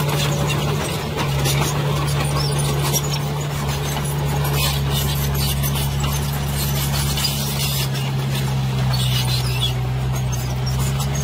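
Dump truck engine running steadily with a constant low hum while the raised tipper bed empties its load of soil, with scattered faint crackles over it.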